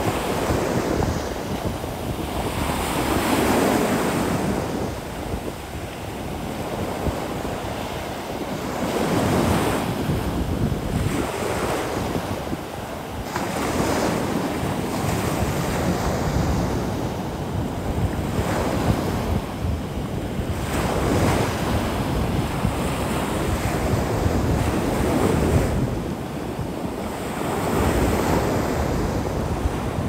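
Ocean surf breaking and washing up on a sandy beach, the rush of each wave swelling and fading every few seconds. Wind buffets the microphone with a steady low rumble underneath.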